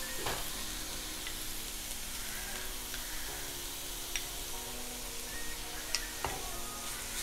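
Softened crushed onions and chillies sizzling in hot oil in a nonstick pan while being stirred with a wooden spatula, with a few sharp taps of the spatula against the pan.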